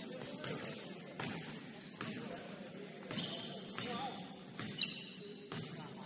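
Basketball game in a gym: a ball bouncing in scattered sharp knocks, short high sneaker squeaks and faint voices.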